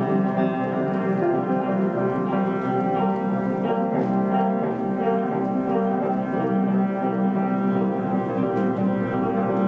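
Live instrumental music: an upright piano played over long, steady held tones.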